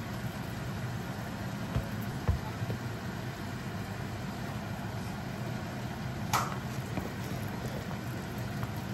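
Steady low hum, with a few soft clicks and one sharper tap about six and a half seconds in, from a spoon scooping and stirring thick soybean and chili pastes in a small plastic container.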